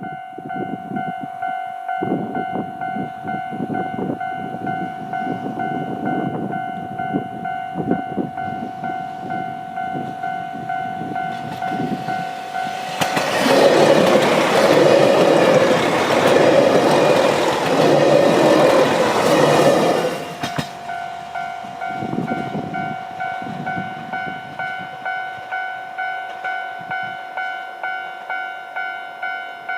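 Japanese level-crossing alarm ringing its steady two-tone clang, about two strokes a second. Roughly halfway through, a diesel train runs through the crossing, loud for about seven seconds and drowning out the alarm, which rings on after it has passed.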